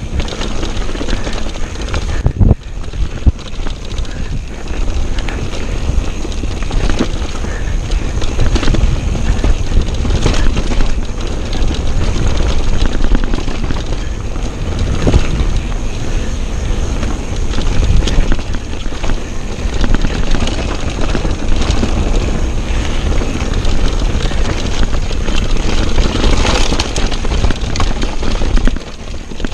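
Mountain bike descending a bumpy forest dirt trail at speed: a steady rumble of wind on the camera's microphone over tyres rolling on dirt, with frequent knocks and rattles of the bike over bumps.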